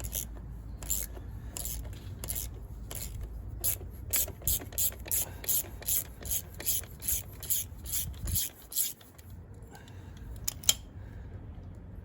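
Ratchet wrench with a T45 Torx bit undoing the rear brake caliper bolts: a clicking stroke with each swing of the handle, slow at first, then quicker at about three a second, stopping after about eight seconds. One sharp click near the end.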